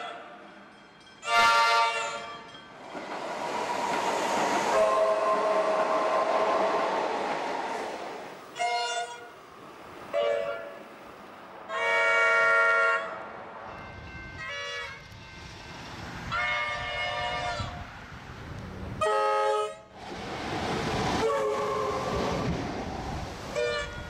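RVB three-chime horns on Comeng suburban electric trains sounding a series of short toots and longer blasts, with the running noise of approaching trains in between.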